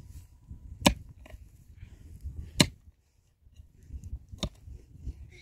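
Sharp knocks or chopping strikes, one roughly every two seconds, over a low uneven rumble.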